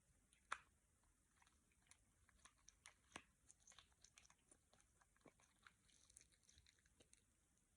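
Faint, irregular small clicks and pops of homemade slime being squeezed and worked by hand, with one louder click about half a second in.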